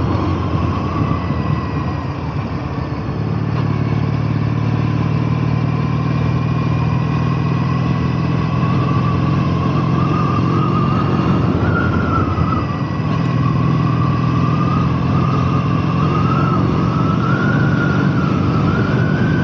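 Engine of a 2012 Triumph T100 865, an air-cooled parallel twin, running steadily, with a wavering high whistle over it and two brief dips in loudness, about two seconds in and near the middle.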